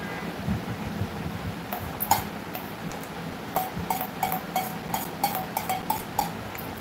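A quick run of small sharp clicks, each with a brief ringing tone, about three a second, starting about two seconds in, from something being handled.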